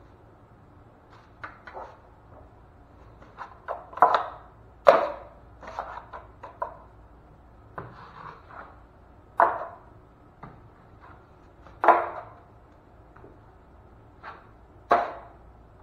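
Steel drywall knife knocking and scraping against the edge of a metal mud pan while joint compound is loaded onto the blade and skimmed over a wall patch: a string of sharp metallic clacks a second or a few seconds apart, each with a short ring.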